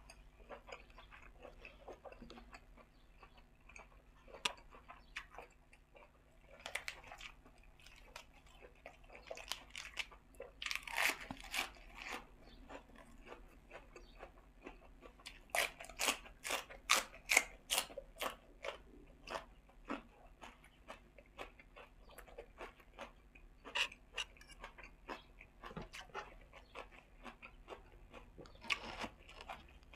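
A person chewing and crunching crisp raw vegetable stalks and a spicy pork-intestine salad, in runs of sharp crunchy bites. The loudest is a quick series of crunches, about three a second, a little past halfway.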